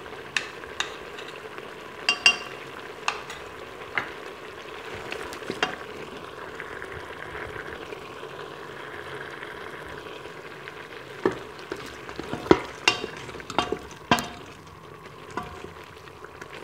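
Spoon stirring a thick chicken and masala curry in an aluminium pressure cooker, clicking and scraping against the pot's metal sides over a steady sizzle of the masala frying as its water cooks off. The clicks come every second or so at first, then in a quicker run in the second half.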